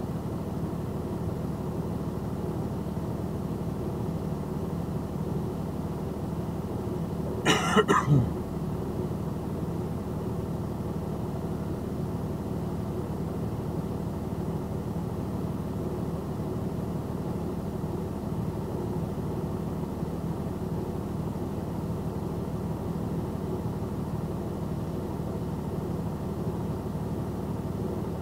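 Steady hum of an idling vehicle engine heard from inside the stopped vehicle's cab. About seven and a half seconds in, a person gives a brief loud cough.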